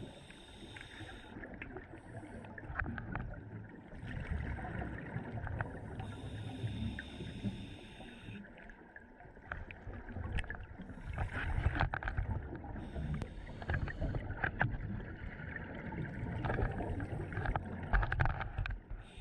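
Scuba diver breathing underwater through an Apeks MTX-R open-circuit regulator: a hiss with each inhalation, coming and going about every two to three seconds, alternating with bubbling exhalations.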